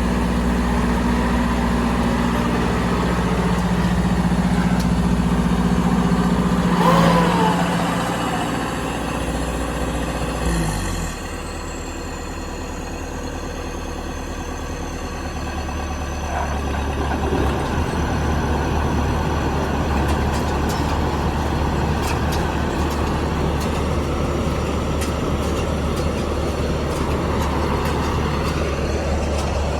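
Yanmar combine harvester's diesel engine running steadily. A short squeal that falls in pitch comes about seven seconds in; at about eleven seconds the engine note drops to a lower, quieter hum, and a high whine slides down in pitch and holds.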